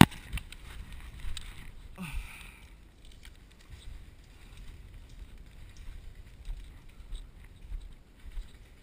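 A single loud, sharp crack at the very start, then low rumbling wind and movement noise on a body-worn microphone with scattered light clicks, and a brief grunt-like voice about two seconds in.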